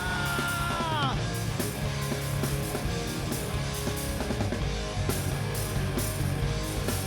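A live rock band (electric guitars, bass guitar and drums) playing. A held sung note bends down and ends about a second in, and the band plays on without vocals.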